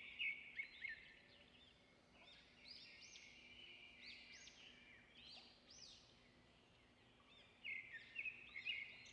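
Faint birdsong: short, repeated chirps, in quick runs at the start and again near the end, sparser in between.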